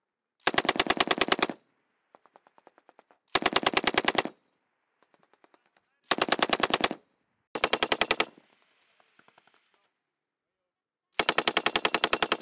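M240B 7.62 mm machine gun firing five bursts of rapid shots, each about a second long except the last, which runs about two seconds. Fainter gunfire comes between the bursts.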